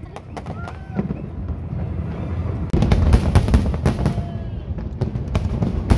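Aerial fireworks bursting: a run of sharp bangs and crackles over a low rumble, growing denser and louder about three seconds in.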